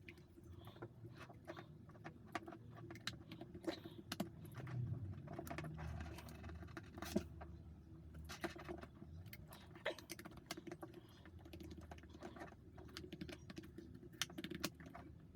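Faint, irregular clicks and taps of small impact-driver parts being handled and fitted together, over a low background hum.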